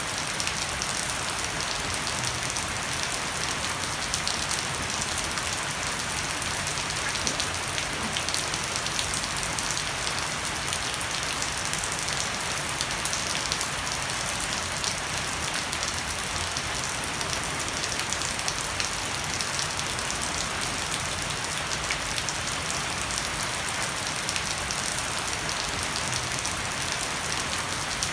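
Heavy rain falling steadily on a wooden deck and garden foliage, with water running off the edge of a thatched roof: an even, unbroken hiss dense with the patter of individual drops.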